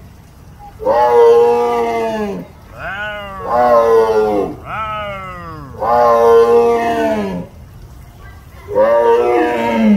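Tiger calling repeatedly: about six loud, drawn-out roaring calls in quick succession, each about a second long, some dropping in pitch at the end and some rising and then falling.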